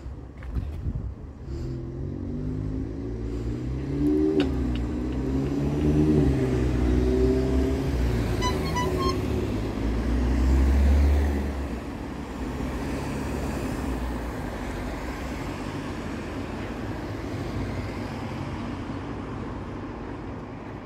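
Car engines on the road by a level crossing: an engine note rises and falls for several seconds, then a car passes close with a loud low rumble about ten seconds in, leaving a steady traffic hum.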